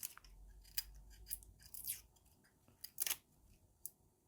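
Kitchen knife cutting an onion on a cutting board: quiet, scattered slicing scrapes and taps, with a louder pair of cuts about three seconds in.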